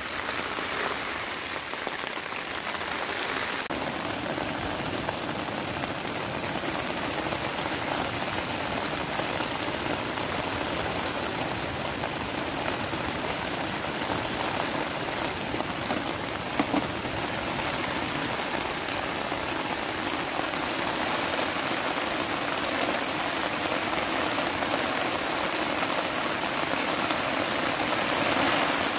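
Heavy rain falling steadily, with one brief sharp tap about seventeen seconds in.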